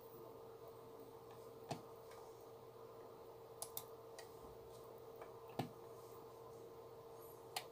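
A handful of sharp computer mouse clicks, one of them a quick double click, over a faint steady electrical hum.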